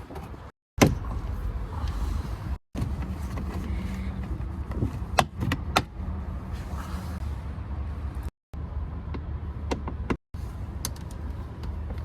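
Sharp clicks and knocks from work on a BMW E90's interior door panel and handle, over a steady low rumble, in several short pieces with abrupt cuts between them.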